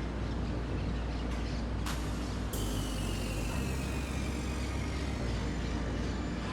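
Steady low mechanical rumble of a heavy engine or machine; a sharp click about two seconds in, followed by a high whine that slowly falls in pitch.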